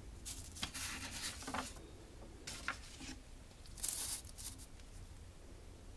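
Printed paper sheets rustling and sliding as a gloved hand turns a page, in three short bursts.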